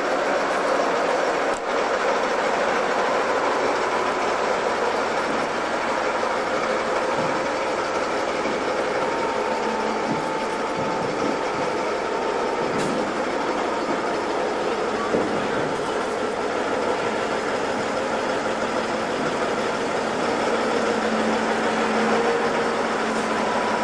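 Railway turntable turning with a steam locomotive standing on it: a steady, even mechanical rumble and hiss with no breaks.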